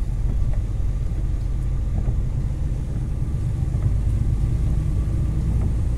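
Steady low drone of a semi-truck's engine and tyres on a wet road, heard from inside the cab.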